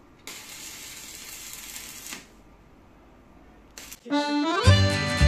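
Welding arc hissing steadily for about two seconds on a steel patch. Background music comes in about four seconds in and is the loudest sound.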